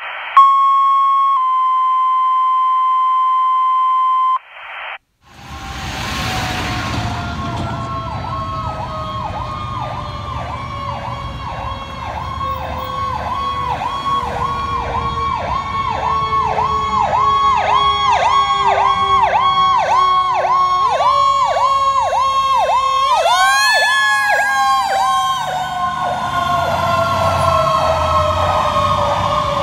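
A steady two-tone alert in the first four seconds: a short tone, then a slightly lower tone held about three seconds. Then a fire engine's sirens: an electronic siren rising and falling about twice a second over a Federal Q mechanical siren slowly winding down in pitch. About three-quarters of the way through, the Q is revved back up to a high scream and then coasts down again.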